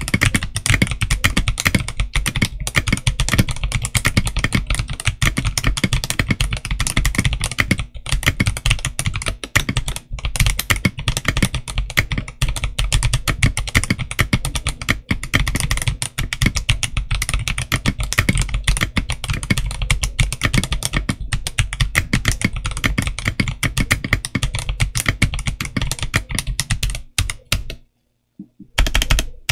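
Stock Machenike K500F mechanical keyboard with tactile switches and translucent polycarbonate keycaps, typed on fast in a dense, continuous run of keystroke clacks. The typing stops about two seconds before the end, and after a short silence there are a few single key presses.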